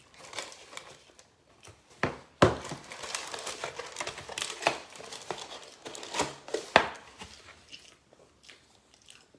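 Close-miked eating: food being torn and crunched, with crinkling and rustling of packaging. Irregular crackles throughout, with a few sharp louder snaps, the loudest about two and a half seconds in.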